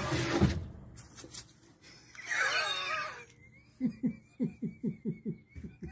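A loud rush of noise at the start, then a person laughing: a high, wavering squeal of laughter, then a run of short falling 'ha' bursts, about four a second.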